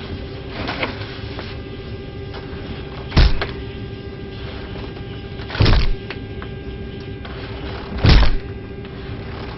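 Overhead luggage bin lid in an airliner cabin slammed down three times, about every two and a half seconds, onto an oversized cardboard box that keeps it from closing. A steady hum runs underneath.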